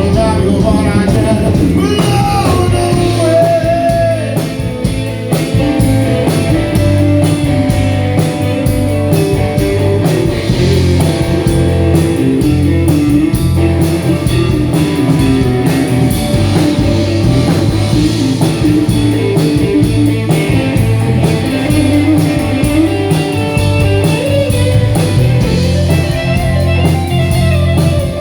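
Live blues-rock band playing, with electric guitar over bass and drums, and singing.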